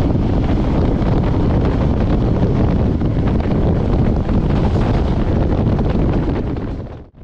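Wind buffeting the microphone at the window of a moving passenger train, over the steady low rumble of the train running on the rails. The sound dips out sharply for a moment right at the end.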